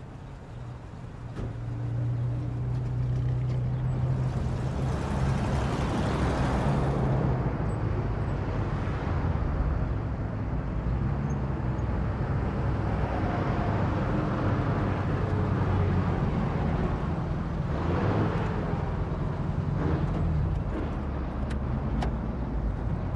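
Road traffic: car engines running with a steady low hum as cars drive along a city street, swelling as vehicles pass about five to seven seconds in and again about eighteen seconds in.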